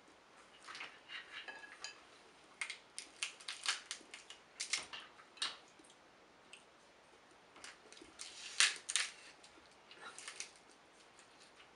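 Snow crab leg shells being cracked and snapped apart by hand: clusters of sharp, irregular crackles and clicks, the loudest a little past the middle.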